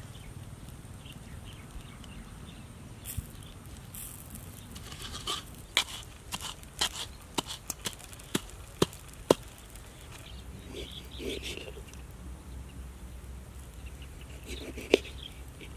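A round stone pestle knocking in a wooden mortar while pounding chilies into a paste: an irregular run of sharp knocks in the middle, followed near the end by one sharp knock of a cleaver chopping through a lime on a coconut shell.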